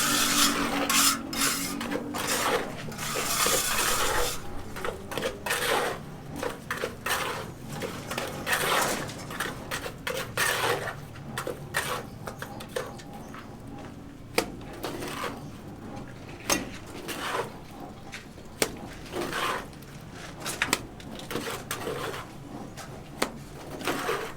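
Irregular clinks and knocks of hand work with tools and materials, with scraping and rustling noise through the first few seconds.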